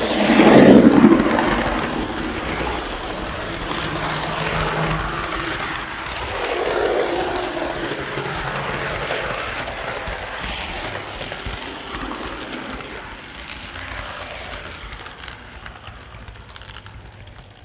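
Model train rolling along the track, heard from a flatcar riding right over the wheels: a steady rumble and clatter of wheels on rail, loudest about a second in and fading gradually toward the end.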